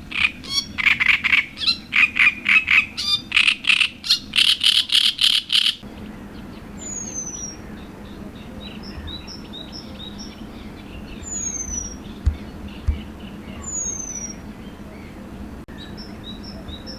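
Birds calling: a loud, rapid run of repeated calls, about four or five a second, that stops abruptly about six seconds in, followed by softer scattered chirps and three thin descending whistles over a steady low background.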